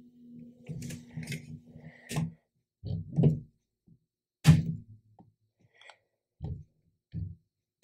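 A Dobot Magician robotic arm with its 3D-printing extruder being moved by hand to set the zero point: irregular knocks and clicks from the arm and its plastic parts, the sharpest about halfway through. A low steady hum runs for the first two seconds and then stops.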